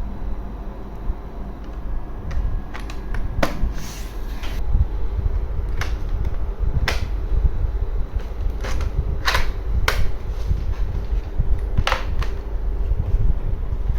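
A scattering of sharp clicks and taps from a small laptop being handled and shut down, over a steady low rumble of handling noise.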